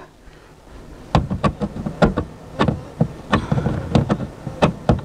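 Irregular clicks and knocks of a power driver's Torx T25 bit and hands against the plastic trunk trim panel while the bit is being fitted onto a hidden screw. They start about a second in.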